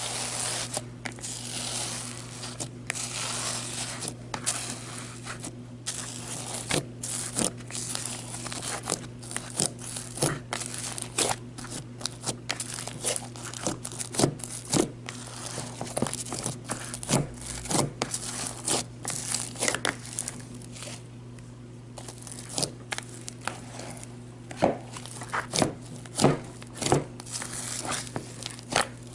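A large soft slime being squished and poked by hand inside its container, making a steady stream of sticky crackles and sharp little pops and clicks, over a steady low background hum.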